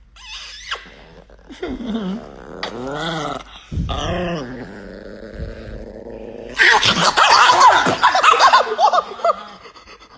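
Small chihuahua growling angrily while its muzzle is held, in wavering bouts that grow much louder about two-thirds of the way through.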